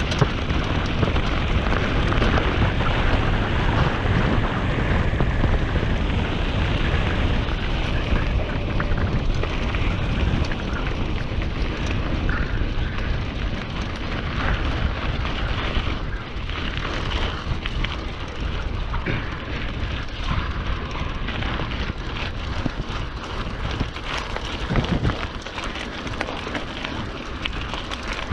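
Continuous low wind rumble on an action camera's microphone while riding a mountain bike on a trail, mixed with the bike's tyre noise and small rattles and clicks.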